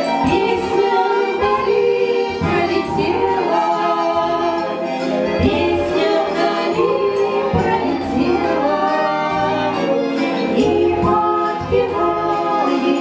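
Two women singing a song together as a duet, with musical accompaniment.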